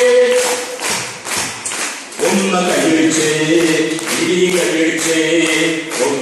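A man singing a Malayalam song through a microphone, holding drawn-out notes. About a second in he breaks off for about a second with a few taps, then sings on.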